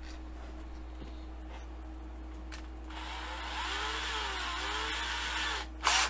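A small electric drill runs for about two and a half seconds from halfway in, its pitch swinging up and down as it bores into a die-cast toy car's base posts so they can be tapped for screws. Two sharp clacks come near the end.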